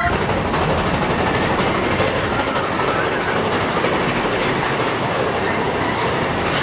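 Mine-train roller coaster cars running along the track: a loud, steady rolling noise.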